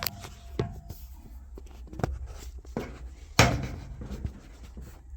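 Hands working a plastic wiring clip on a dryer's front panel, squeezing it to release it: a few light clicks and knocks, with a louder rustling scrape about three and a half seconds in.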